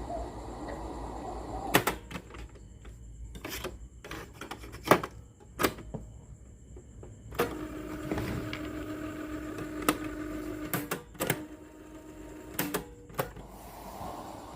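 Sharp GF560 radio cassette player being switched and operated: about ten sharp mechanical clicks from its switches and keys. Between the clicks the output cuts among radio hiss, short silences and, about halfway through, a steady tone that lasts about five seconds.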